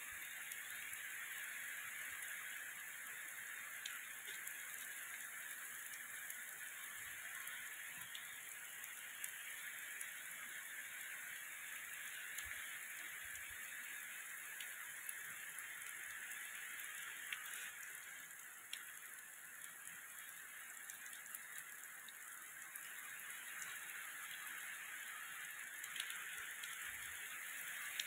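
Heavy rain pouring down onto ground and vegetation: a steady hiss with scattered drop ticks, easing slightly for a few seconds past the middle.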